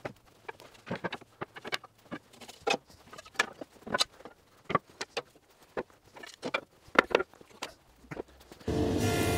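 Hardwood offcuts knocking and clattering as they are pulled off a lumber rack: a string of irregular knocks, a few louder than the rest. Near the end a jointer's motor comes in suddenly, running with a steady hum.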